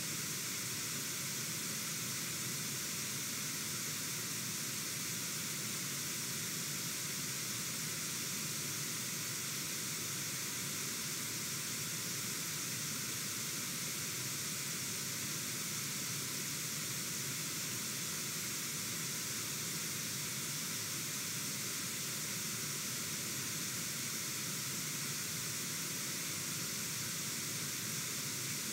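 Steady rush of flowing river water, an even hiss with no distinct events.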